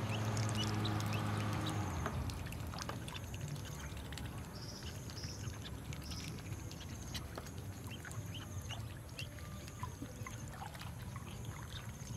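Ducklings paddling and dabbling in a shallow plastic tub of water, with small splashes and scattered short high peeps. A low steady hum runs for about the first two seconds, then stops.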